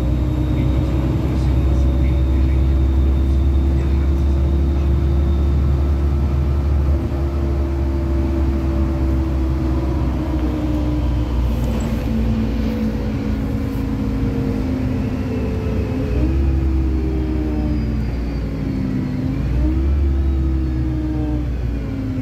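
LiAZ-5292 city bus running, heard from inside the passenger cabin: a steady low engine and drivetrain rumble with road noise. The engine note slides slowly lower, then rises sharply twice near the end as the bus pulls harder.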